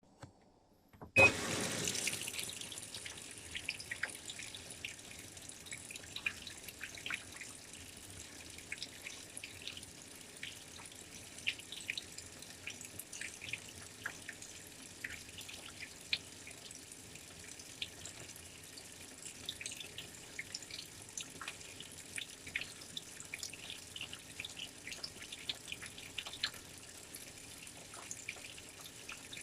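Washing machine filling with water: about a second in, water suddenly starts rushing in, then runs on as a steady hiss with many small drips and splashes.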